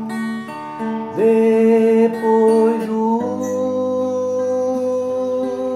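Music: a voice slides up into one long held sung note over sustained plucked-string chords, with the chord changing about three seconds in.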